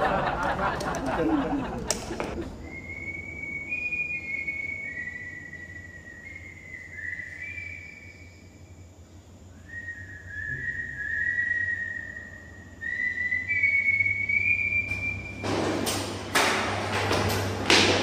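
Whistling: a string of held notes at about the same high pitch, some sliding slightly down, starting about two seconds in and stopping a few seconds before the end. Loud rustling and handling noise fills the last few seconds.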